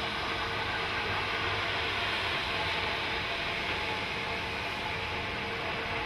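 Train of passenger carriages behind a Climax geared steam locomotive passing over a timber trestle bridge: a steady, even rushing noise with no distinct beats.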